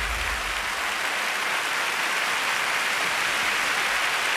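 Studio audience applauding, a steady even clapping with no music over it.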